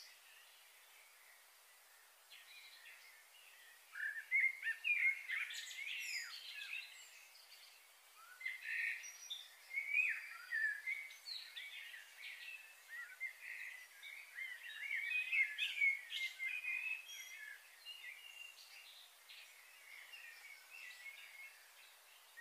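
Small birds chirping and calling in short, quick, overlapping phrases, sparse for the first few seconds and then busier from about four seconds in.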